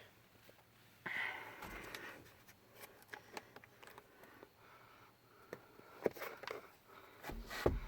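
Handling noise inside a car cabin: soft rustling about a second in, then scattered small clicks and taps that come thicker near the end.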